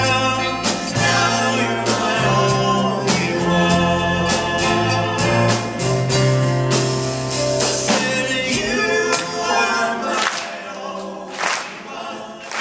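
Live band playing a gospel-flavoured love song: acoustic guitar, bass and drums under singing. About nine seconds in the bass and band drop away, leaving the voices and a few handclaps.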